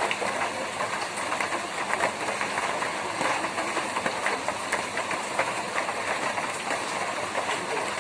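Rain falling steadily on a tin roof: a dense, even patter of drops with many sharp little ticks on the metal.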